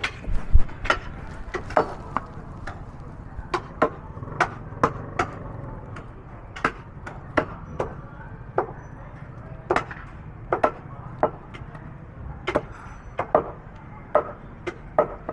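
Cleaver chopping through buffalo trotters on a wooden chopping block: a long run of sharp, unevenly spaced strikes, about two a second, as the blade hits bone and wood.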